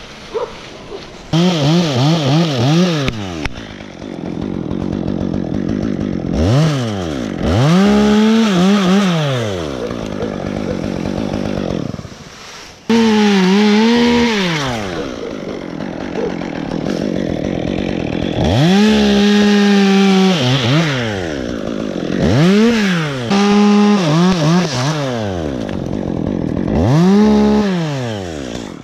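Top-handle chainsaw sawing through pine limbs. The engine revs up to full speed and holds through each cut, then drops back toward idle, about six times over. It cuts out briefly about 13 seconds in.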